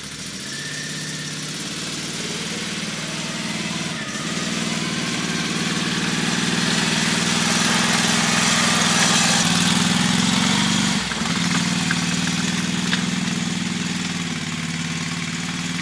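An engine running steadily, a little louder midway, with a brief dip about two-thirds of the way through.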